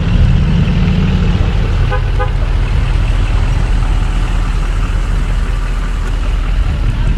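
Truck engine idling: a steady low rumble, heaviest in the first second and a half, with a few short pitched toots about two seconds in.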